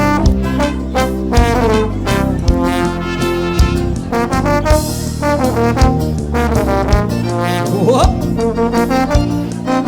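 Instrumental break of a dance song: a band plays pitched melody lines over bass and a steady beat, with no singing. About eight seconds in, one note slides quickly up and back down.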